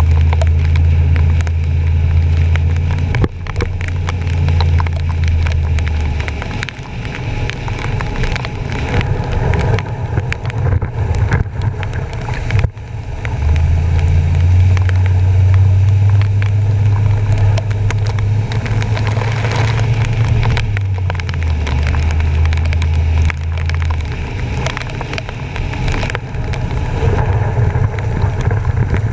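Truck driving through flooded streets in rain, heard from a camera on its front bumper: water splashing and rushing under the bumper over a low rumble that drops away and returns several times.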